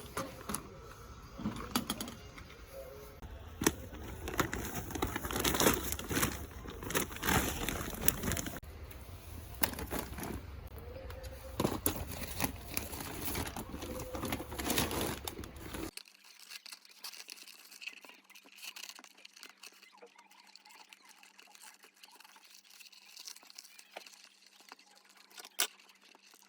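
Paper crinkling and rustling with small taps and clicks as paper is handled. It becomes quieter and sparser about two-thirds of the way through.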